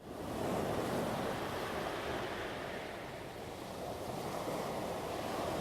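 Heavy surf breaking on a loose pebble beach: a continuous rushing wash that fades in at the start, eases a little midway and builds again.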